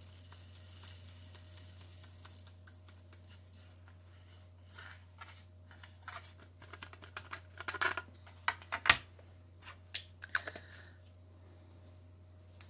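Small plastic diamond-painting drills being poured from a little container into a tray: a soft rattling hiss, then scattered light clicks and taps, loudest about eight or nine seconds in.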